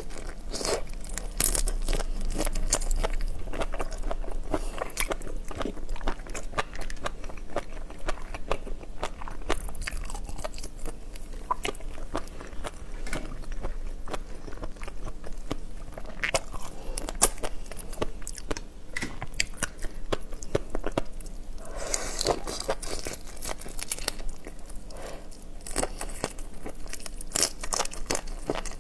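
Close-miked eating of raw shrimp topped with fish roe: biting and chewing, with the crackle of shells being peeled by hand. The clicking comes in denser bursts every few seconds.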